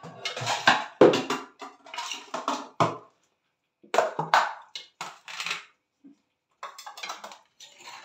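Ceramic plates and a small bowl clinking and clattering on a stone countertop as slices of fried eggplant are picked off one and dropped into the other by hand. The sounds come in several short bunches with quiet gaps, the loudest about a second in and again around four to five seconds.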